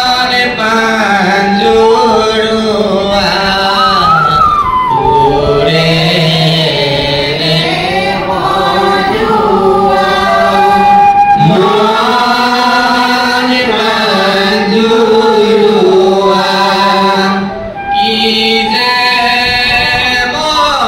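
A voice singing a dihanam, an Assamese devotional song, into a microphone, in long held lines with gliding, ornamented pitch and a short break for breath near the end.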